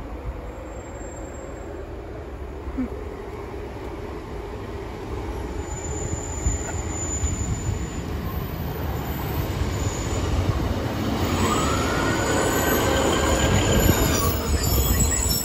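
Diesel multiple-unit passenger train approaching and running in alongside the platform, getting steadily louder with a low rumble. A high squeal from the wheels sets in about eleven seconds in, as the coaches pass close by.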